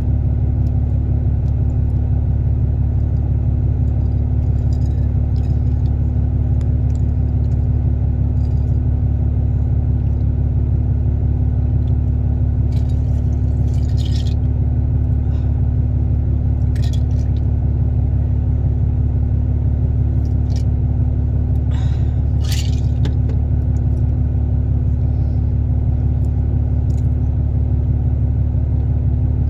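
Steady low mechanical hum with a fixed tone, unchanging throughout, and a few brief crisp crackles of eating, such as biting into a cookie.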